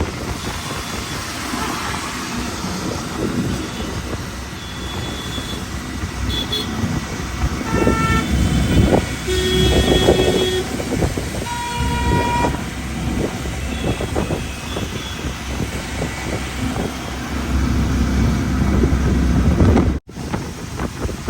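Road traffic running steadily, with several vehicle horns honking in a cluster of blasts around the middle.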